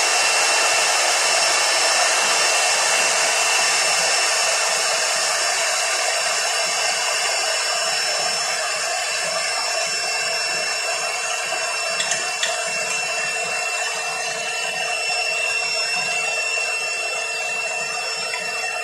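Wet/dry shop vacuum running steadily, a rushing airflow with a constant whine as its hose is worked over the parts. Two light knocks about twelve seconds in.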